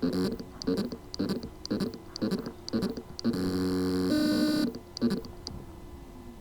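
Hard drive with loose spindle-motor contacts trying to spin up. Rhythmic pulses come about twice a second, then a buzzing hum for about a second and a half, then a few more pulses that fade away. This is the sound of a motor that can spin but cannot reach full speed.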